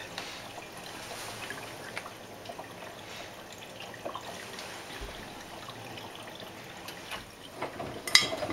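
Water trickling and dripping inside the drum of a Miele Navitronic front-loading washing machine while the drum pauses between turns. Near the end, sharp clicks and knocks as the drum starts turning again.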